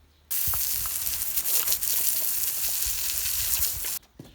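High-pressure water spraying from a Karcher K5 pressure washer, a loud steady hiss that starts suddenly and cuts off sharply after nearly four seconds.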